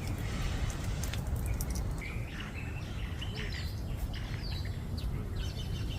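Birds chirping briefly in the middle, over a steady low outdoor rumble.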